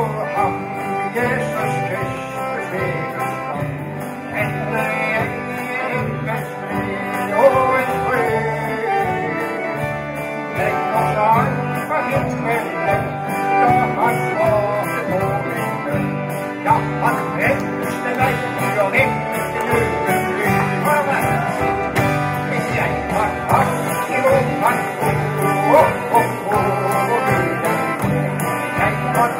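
A live band plays a country-style song with accordion, acoustic and electric guitars, bass guitar and drums, over a steady pulsing bass line.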